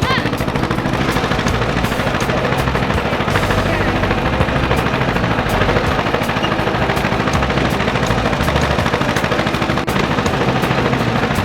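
Tractor engine running steadily while hauling a ride, with a rapid, even rattle of firing pulses.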